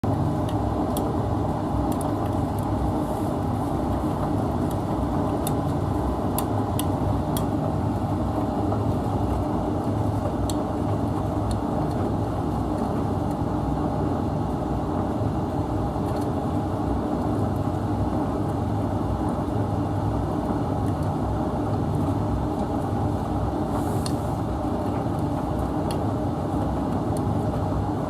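Laundry appliance running with a steady low rumble, with a few faint light clicks on top.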